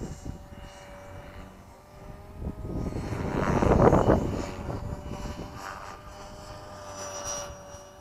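Electric 450-size RC helicopter (Tarot 450) whining steadily in flight. A loud rushing swell builds and fades about three to four seconds in.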